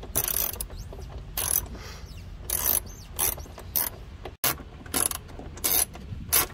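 Hand ratchet wrench clicking in short repeated strokes as it turns a dash bolt, with a brief cut-out about four and a half seconds in.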